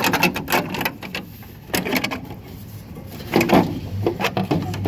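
Plastic clicks and knocks in three short clusters as the van's rear tail-light housing is handled and worked loose from the body.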